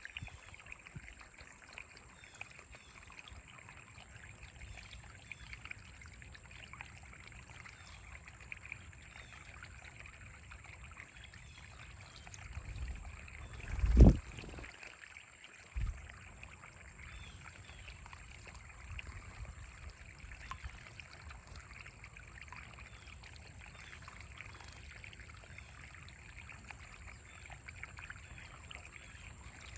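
Steady trickling water with faint small-bird chirps throughout, broken by a loud low thump about halfway through and a smaller thump two seconds later.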